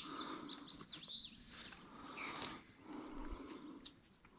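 Birds chirping with short, quick calls, over soft rustling as trotline cord is pulled in by hand and piled up.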